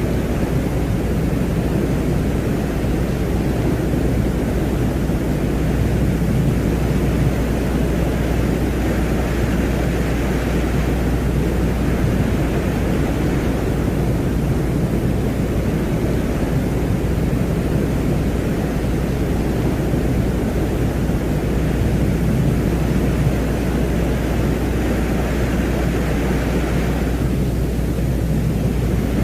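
Space-ambient 'sound of Venus' drone: a steady low rumbling noise over a constant deep hum, with a fainter higher hiss that swells and fades, dropping away shortly before the end.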